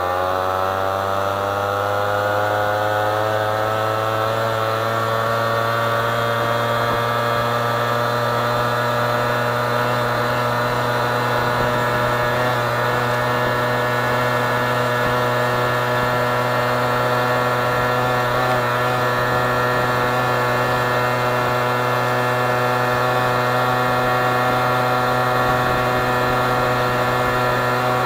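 2003 LRX 50cc scooter's 1E41QMB two-stroke single-cylinder engine running at wide-open throttle under way. Its pitch rises quickly over the first couple of seconds as the scooter picks up speed, then keeps climbing slowly and levels off near top speed.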